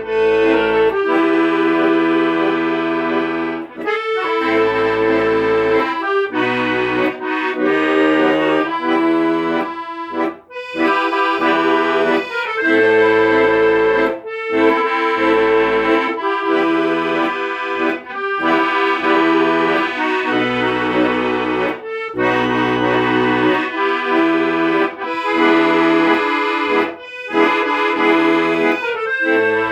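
Accordion playing a tune, with melody and chords held over changing bass notes, in phrases with short breaks between them.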